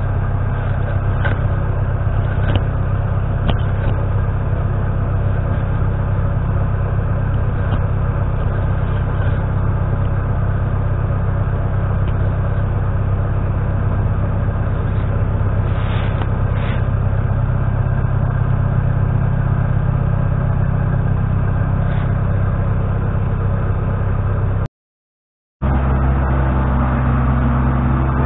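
New Holland LX665 skid steer loader's diesel engine running steadily at working speed. It drops out for about a second near the end, then comes back at a slightly different pitch.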